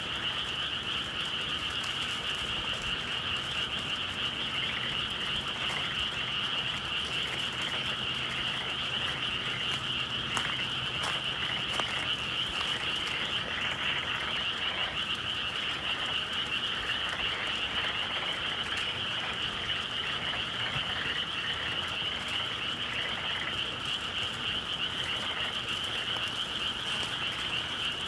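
Dense chorus of many frogs calling together without a break, forming a steady high trill over a lower, busier layer of calls. A few faint clicks sound about a third of the way through.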